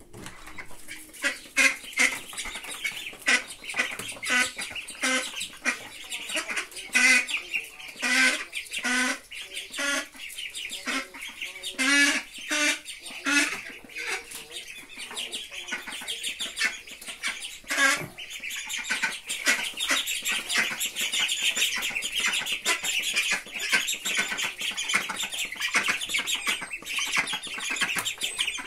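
Adult duck quacking loudly again and again, about a call every half second, over a brood of ducklings peeping in a dense high-pitched chatter; the quacking stops about two-thirds of the way through and the ducklings' peeping carries on alone.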